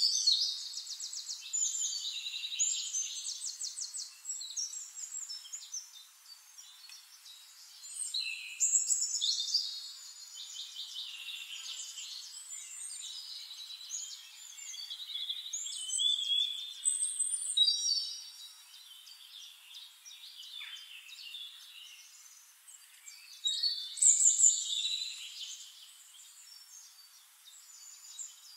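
Songbirds singing: high, rapid trills and chirping phrases, with louder bursts about every eight seconds.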